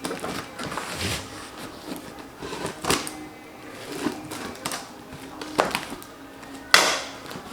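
A cardboard shipping box being handled and opened: scattered scrapes, taps and rustles of cardboard and packing, the loudest about seven seconds in.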